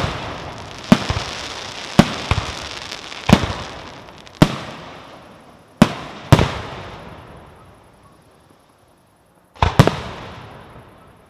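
Aerial fireworks shells bursting: sharp bangs about once a second, each trailing off in a long echoing rumble. There is a lull of about three seconds, then a quick double bang near the end.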